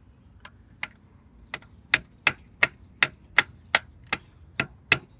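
Small hammer tapping a tool against the carburetor's mixture-screw caps, metal striking metal: a few light taps at first, then steady, harder taps about three a second from about two seconds in.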